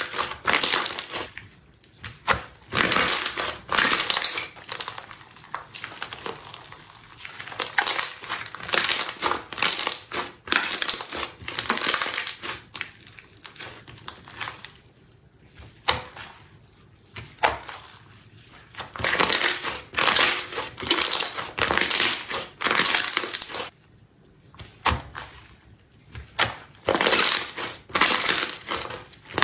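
Slime in cups being pressed and squished by hand, giving irregular bursts of crackling, crinkly sound with short quieter pauses between handfuls.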